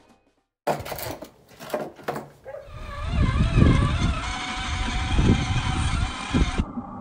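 Battery-powered ride-on toy car driving over grass: a few knocks and clicks, then a wavering electric motor whine over uneven low rumbling from about three seconds in.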